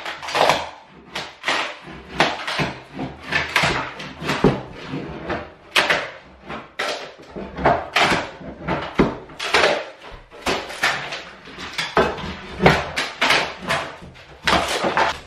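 Old wooden floorboards being pried and broken up with hand tools: an irregular run of sharp knocks and cracks of splitting wood, about two a second.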